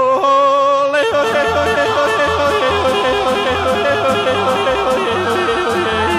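Yodeling song: a voice holds one note, then from about a second in yodels in fast leaps between low and high notes, over backing music with a steady beat.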